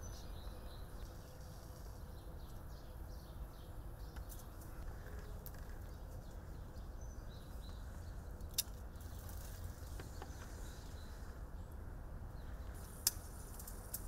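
Steady outdoor background rumble with small birds chirping, broken by two sharp clicks: pruning shears snipping through carnation stems, about eight and a half seconds in and again near the end.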